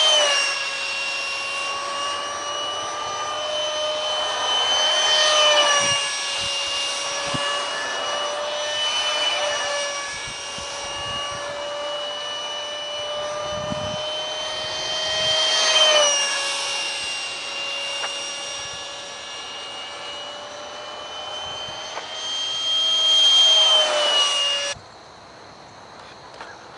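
Detrum 70mm electric ducted fan of an RC flying-wing jet whining at high throttle as it makes four close passes, its pitch dropping each time it goes by. Near the end the whine cuts off suddenly, leaving faint high insect chirring.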